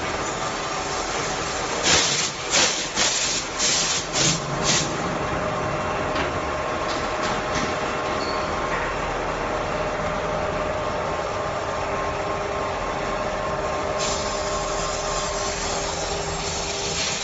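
CAK50186 CNC lathe knurling a long shaft: a steady machining noise from the spindle and the knurling wheel rolling on the turning shaft, with faint steady tones. Several short, loud bursts come between about two and five seconds in, after which the noise runs evenly.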